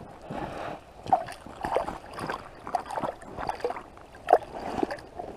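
Water splashing and sloshing in an ice-fishing hole as a hooked fish is pulled up and handled at the hole, in irregular short splashes.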